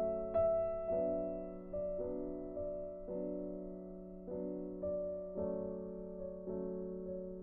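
Slow, gentle background piano music: single notes struck about once a second and left to fade, over a steady low held tone.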